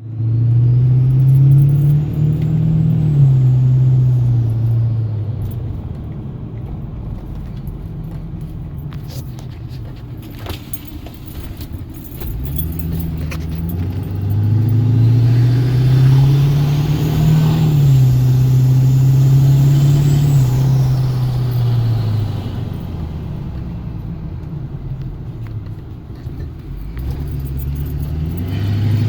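2011 Ford F-250's 6.7 L Power Stroke diesel V8 with a BorgWarner S364.5 SXE turbocharger, revved and held twice with idle between. Each time the turbo whistle climbs to a high whine and falls back as the revs drop, and a third rev begins near the end.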